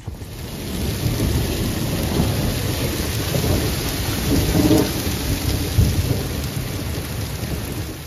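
Heavy rain falling hard on stone patio paving, with a low rumble of thunder that swells about halfway through.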